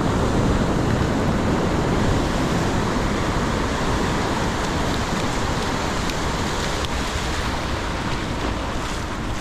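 Ocean surf washing up the beach and foaming over the sand in a steady rush, with wind on the microphone.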